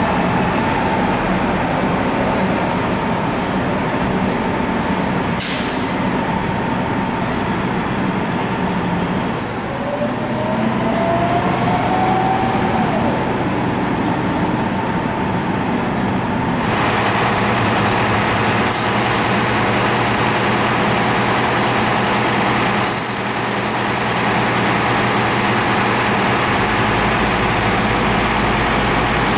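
City transit buses running and pulling away, one clip after another, with a short sharp hiss about five seconds in, typical of an air-brake release, and a rising whine around ten seconds in as one bus speeds up.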